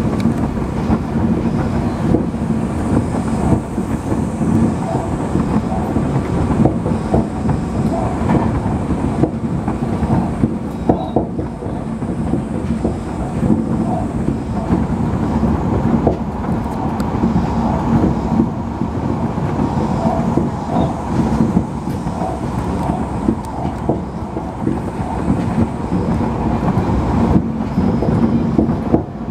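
Tobu Noda Line commuter train running at speed, heard from inside the car: a steady rumble of the wheels on the rails, with the clickety-clack of the wheels over rail joints.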